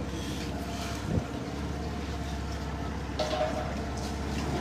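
Motorboat engine running steadily, with wind on the microphone. A single sharp knock about a second in.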